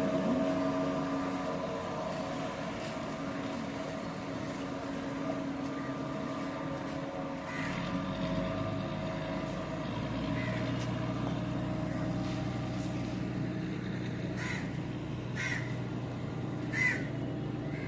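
An engine running steadily, with crows cawing several times in the second half, the loudest caw near the end.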